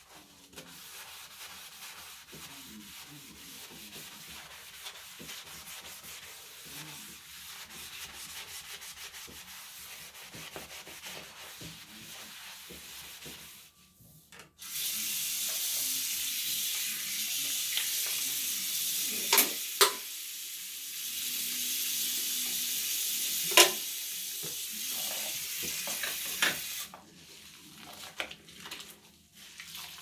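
Scouring sponge scrubbed back and forth over a bathroom sink basin, a steady scratchy rubbing. About halfway through the tap is turned on and water runs loudly into the basin for about twelve seconds, with a few sharp knocks, then stops, leaving quieter wet squelching of the sponge.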